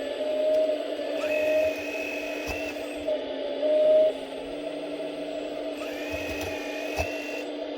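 Hydraulic pump of a 1/14 scale RC excavator running with a steady whine that swells in places. A higher whine comes in twice for a second or so as the hydraulics are loaded, and there are a couple of sharp knocks.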